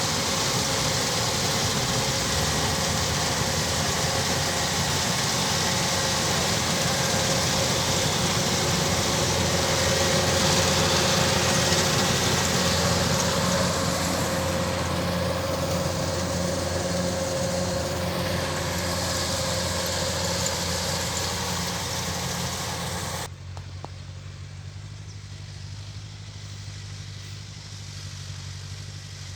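Kubota DC-105X rice combine harvester running steadily, a diesel engine hum under a broad mechanical hiss. About 23 seconds in the hiss cuts off suddenly and only a quieter, lower engine hum remains.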